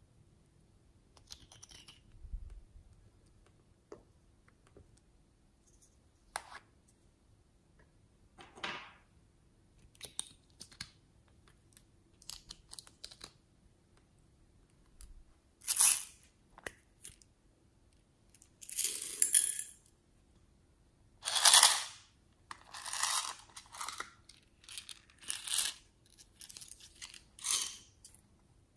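Close-up handling sounds while decorating slime with small plastic tools and pots: scattered light taps and clicks at first, then from about halfway several louder rustling, rattling bursts, each about a second long, as toppings such as sprinkles are handled.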